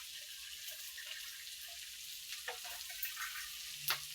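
Pork and peas cooking in a non-stick pan with a little water just added, giving a soft, steady sizzling hiss. Two light clicks come about two and a half seconds in and near the end.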